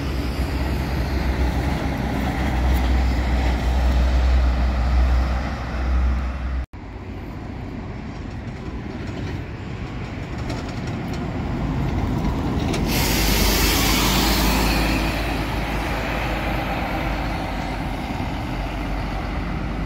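Intercity coach diesel engines running with a steady low rumble. The sound cuts off abruptly about seven seconds in and the engine noise goes on. About thirteen seconds in comes a hiss of air from a coach's air brakes, lasting about two seconds.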